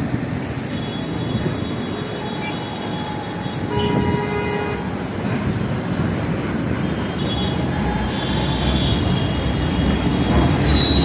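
Lucknow Metro train running along an elevated viaduct, its rumble growing louder and deeper in the last few seconds as it comes overhead, over steady traffic noise. A horn sounds briefly about four seconds in.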